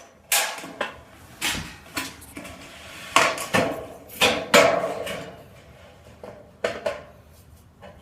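Sheet metal being worked by hand during fabrication: irregular metallic knocks and clatters, each with a short ring, several loud strikes in the middle.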